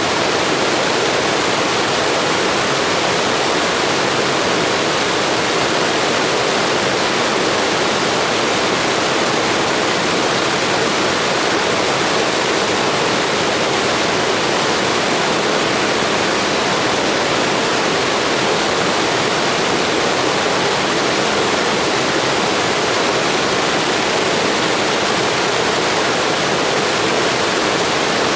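Blizzard wind blowing as a steady, even rushing hiss, with no gusts or breaks.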